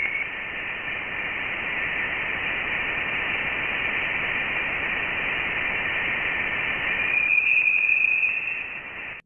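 Voyager 1's interstellar plasma-wave recording turned into sound: a steady, eerie hiss with a faint high tone in it. The tone grows stronger about seven seconds in, and the sound cuts off suddenly.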